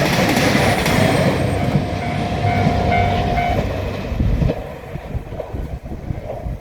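A JR Shikoku diesel railcar train passing over a level crossing, its running rumble and wheel clatter loud and then fading away from about four and a half seconds in. A short steady tone sounds briefly around three seconds in.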